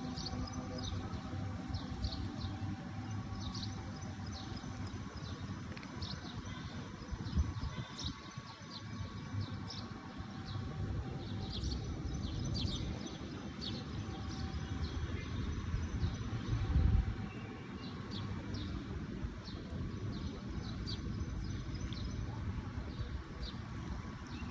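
Small birds chirping in many short, high notes, repeated irregularly, over a steady low rumble of wind or distant background noise that swells briefly near the end.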